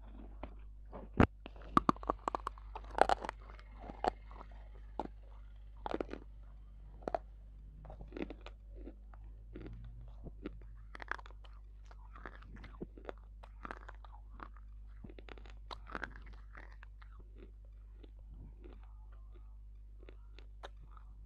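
Biting and chewing pieces of dry clay bar right at a clip-on microphone. A sharp snap about a second in is followed by a run of loud crunches over the next few seconds, then softer crunchy chewing that thins out in the second half.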